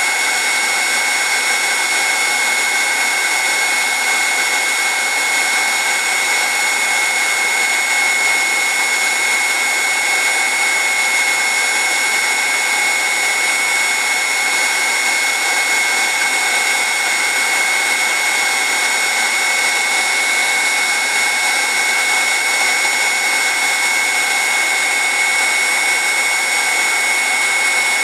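Electric heat gun running steadily, its fan blowing hot air with a constant high-pitched whine.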